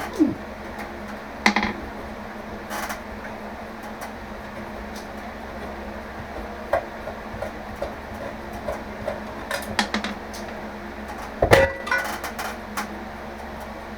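Scattered metallic clinks and knocks of an old bathroom light fixture being unscrewed and taken down, with a heavier thump and clatter late on, over a steady low hum.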